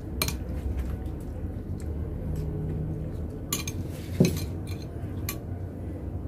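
Metal spoon scraping and clinking against a ceramic bowl and plate while sambal is spooned out, with a few sharp clinks, the loudest just past four seconds in.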